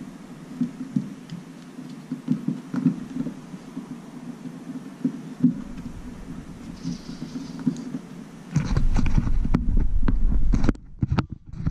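Low steady hum with light taps and rubbing as fingers press adhesive patches down over the roof-channel bolt holes. About eight and a half seconds in, loud rumbling and rustling handling noise on the microphone takes over for about two seconds.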